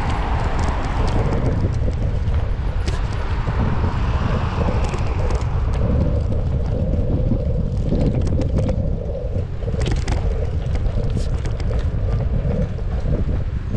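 Wind rumbling over an action camera's microphone during a bicycle ride, over road and tyre noise, with scattered clicks and rattles. A faint steady hum joins about five seconds in.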